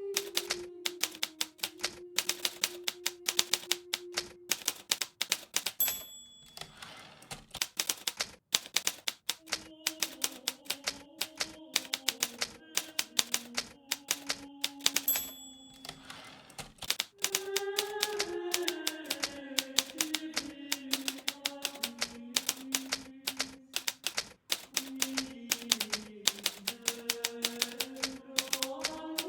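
Hermes Baby portable typewriter being typed on at a steady, quick pace, its typebars striking the platen in dense clicks. Twice a short bell ding is followed by a pause in the keystrokes, about six seconds in and again about fifteen seconds in, fitting an end-of-line bell and carriage return. A soft, slow melody plays underneath.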